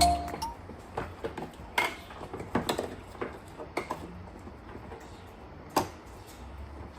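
Scattered light clicks and knocks of small hard parts and tools being handled during bench work, with the loudest single click about six seconds in.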